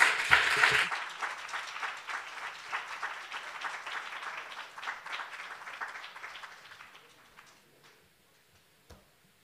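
Audience applauding, loudest at the start and dying away over about seven seconds.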